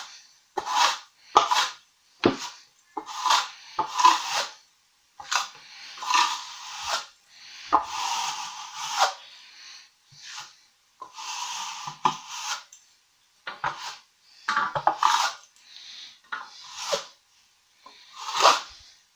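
A plastering float rubbing over a freshly skimmed multi-finish plaster coat on a wall, going back over it to flatten out imperfections. It comes as a series of short scraping strokes, about one a second, with a few longer sweeps of a second or more.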